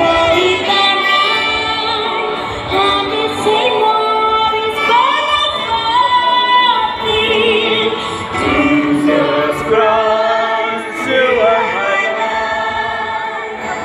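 Many voices singing together, with long held notes and rising and falling lines throughout.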